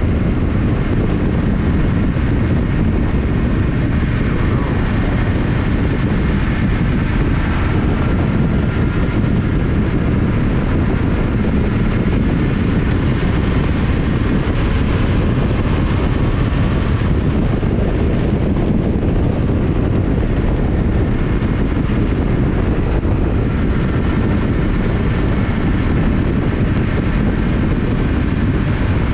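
Yamaha Ténéré 700's parallel-twin engine running at a steady cruise, its note rising and falling slightly with the throttle, under heavy wind and road noise on the camera microphone.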